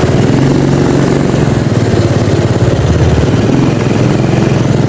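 Small motorcycle engine running steadily with a fast, even pulse.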